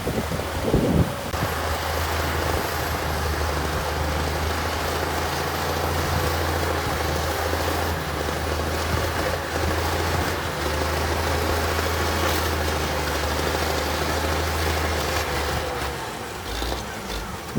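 Heavy diesel engine of earthmoving equipment running steadily with a deep, even hum, starting about a second in and easing off near the end.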